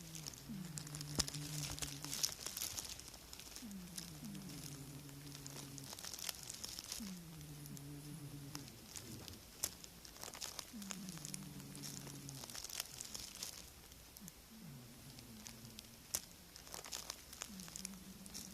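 Sleeping cat snoring, a low pitched snore about every three and a half seconds, each starting with a short falling glide. Light crackling, rustling clicks come between and over the snores.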